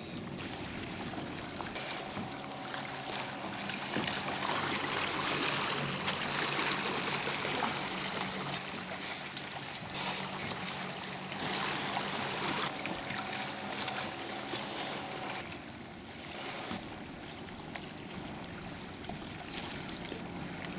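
Water rushing and splashing along the hull of a kayak under way, with a faint steady hum from its electric trolling motor.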